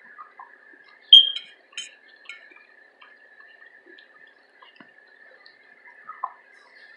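Close-up eating sounds: scattered wet mouth clicks and smacks while chewing. The loudest is a sharp high click about a second in, and smaller ones follow.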